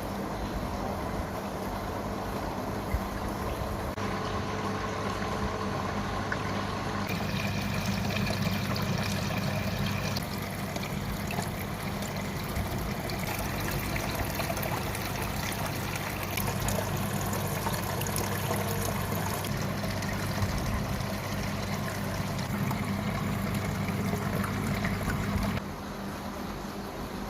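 Small paludarium waterfall trickling and splashing steadily, with a steady low hum underneath; the sound drops in level about two seconds before the end.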